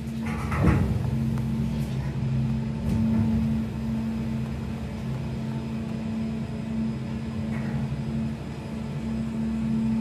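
Gondola lift cabin running through the station: a steady mechanical hum from the station's drive and conveyor wheels, with a loud clunk and rattle about half a second in and a few lighter knocks after.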